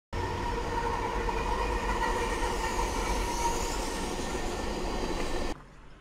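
Diesel freight locomotives running, a loud steady din of engines and rail noise with a few faint steady whines in it. It cuts off suddenly about five and a half seconds in, leaving only faint outdoor background.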